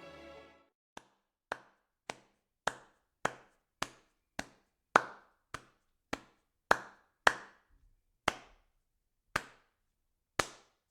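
Background music cuts out, then a series of sharp knocks, about two a second with a couple of longer pauses, each with a short ringing tail.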